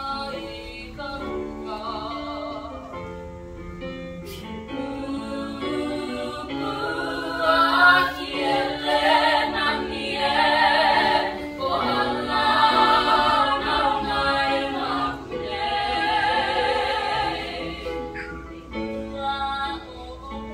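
Teenage girls singing in turns, with vibrato. The voice grows louder and fuller from about seven seconds in.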